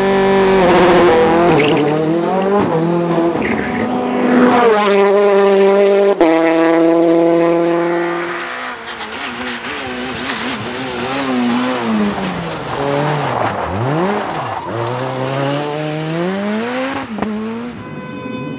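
Rally car engine at full throttle, its note climbing through the revs with a sharp drop at a gear change about six seconds in. Later it falls and climbs again as the car brakes and accelerates out of a corner.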